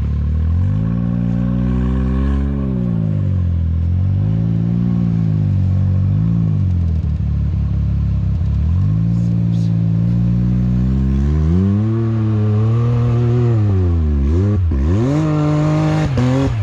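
Side-by-side UTV engine revving up and down repeatedly, each rise lasting a second or two, with quicker blips near the end, as the machine works its way out of deep snow.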